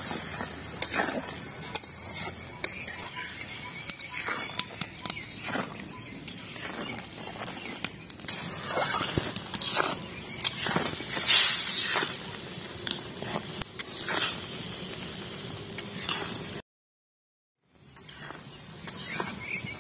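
Spatula stirring jujubes in bubbling syrup in a metal karai, scraping and clinking against the pan over a steady sizzle. The sound cuts out for about a second near the end.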